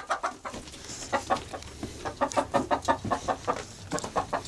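Chickens clucking, a run of short, quick clucks repeated several times a second.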